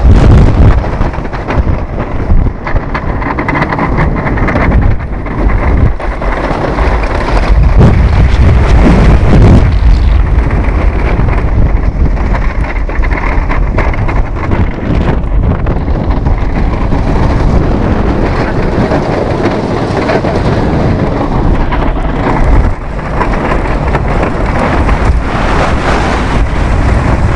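Wooden roller coaster train running fast along its track, a loud continuous rumble and rattle with heavy wind buffeting on the microphone.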